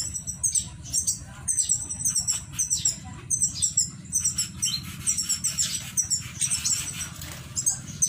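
Small aviary finches calling: a busy stream of short, high chirps, many in quick pairs and runs, over a steady low hum.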